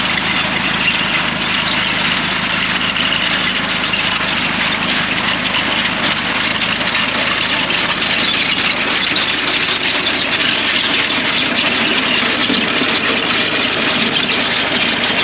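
Tractor engine running steadily, with a dense clattering noise over it.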